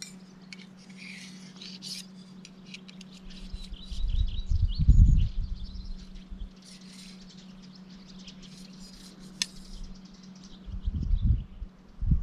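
Small birds chirping and twittering in the background, with low rumbles from wind or handling on the microphone twice, about four seconds in and near the end.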